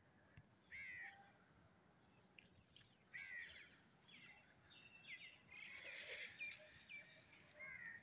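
Faint birds calling in the open: a scatter of short chirps and calls with falling pitch, coming thicker about halfway through.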